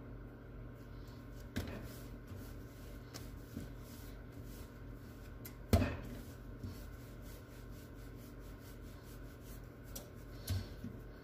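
Hands rolling and pressing a log of bread dough on a silicone baking mat: soft rubbing and handling noise with a few dull knocks on the counter, the loudest about halfway through. A steady low hum runs underneath.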